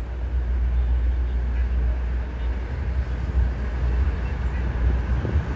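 Wind buffeting the microphone in the wake of a passenger train that has just passed, with the train's rumble as it pulls away. The sound is a heavy, steady rumble.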